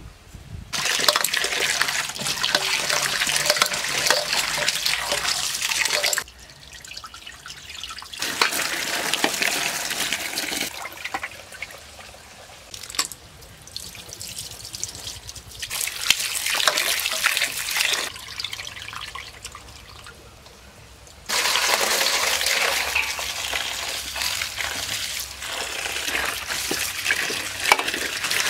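A stream of water pouring into a steel bowl while a hand swishes and rinses chopped vegetables and leafy greens. The water runs in several spells with short quieter gaps between them.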